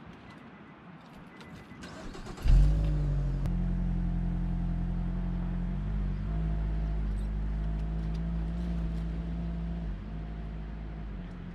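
Nissan X-Trail SUV's engine starting about two and a half seconds in, with a sudden jump in level, then running with a steady hum as the vehicle pulls away slowly. The hum drops a little near the end.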